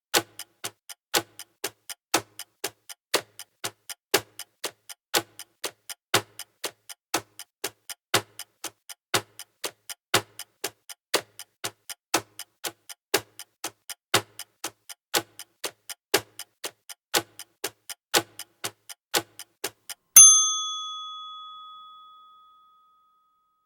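Clock ticking sound effect, about two ticks a second. About twenty seconds in the ticking stops and a single ding rings out and fades over a couple of seconds: the timer's end-of-minute alarm.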